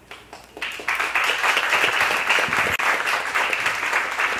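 Audience applauding: a few scattered claps, then within the first second dense, steady applause.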